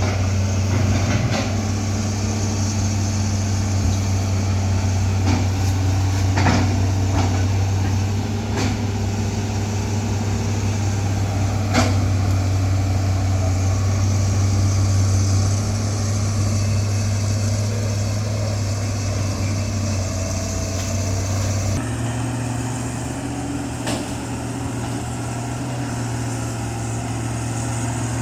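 Large excavator's diesel engine running steadily under work, with a few sharp knocks. Near the end the engine note changes abruptly.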